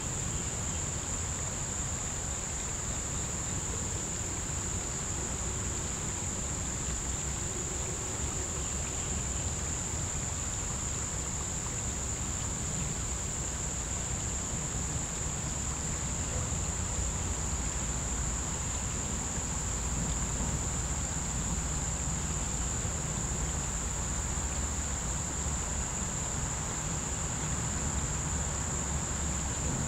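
Insects chorusing in a steady, unbroken high-pitched drone, over a low, even rumble.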